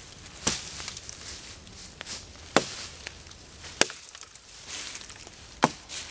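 An axe chopping dead wood for firewood: about five sharp, irregularly spaced strikes.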